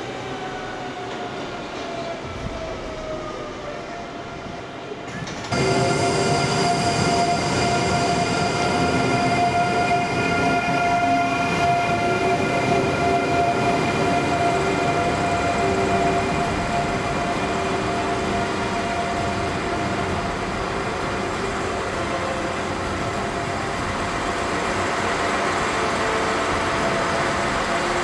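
Régio 2N (Z 2N NG) electric multiple unit running, its traction motors giving an electric whine over a rumble. Over the first few seconds the whine falls in pitch; about five and a half seconds in the sound suddenly gets louder and settles into a steady whine with several pitches at once.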